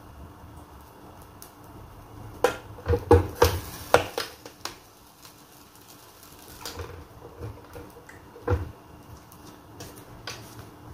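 Metal lid and handle of an electric flatbread press clacking and knocking as it is brought down onto dough balls and opened again. There is a quick cluster of sharp knocks a few seconds in and then single knocks, over a faint steady hum.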